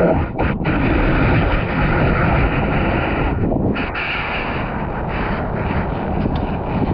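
Ocean surf washing at the water's edge, heard on a GoPro's microphone at water level as a loud, steady rumbling noise. The sound briefly goes dull twice, about half a second in and again a little past three seconds.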